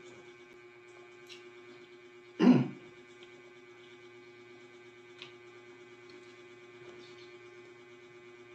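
A short vocal sound from the man eating, like a throat-clear or an 'mm', about two and a half seconds in, over a steady low electrical hum, with a few faint clicks of eating by hand.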